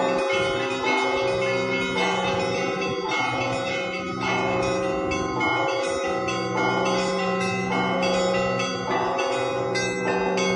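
Russian Orthodox church bells rung in a festive peal: several bells of different pitches struck in a steady repeating pattern about once a second, each strike ringing on into the next.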